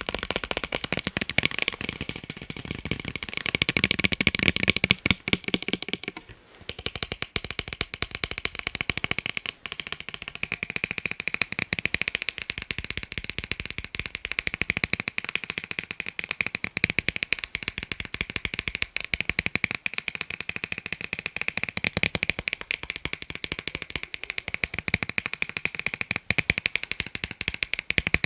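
Fast tapping on a pair of eyeglasses: a dense run of light, rapid taps with a brief pause about six seconds in.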